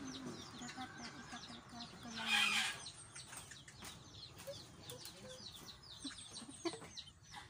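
Chickens calling: a steady run of short, high peeping chirps, with one louder, harsh call about two seconds in.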